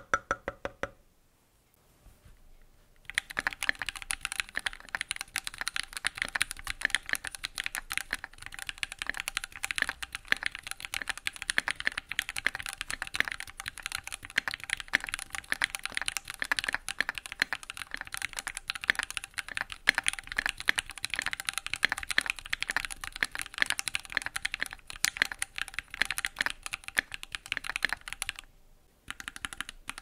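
Keychron Q1 aluminium mechanical keyboard with stock plate and case foam, factory-lubed Gateron Pro Red linear switches and OSA double-shot PBT keycaps, typed on fast and continuously. The typing starts about three seconds in after a short quiet spell and stops briefly near the end.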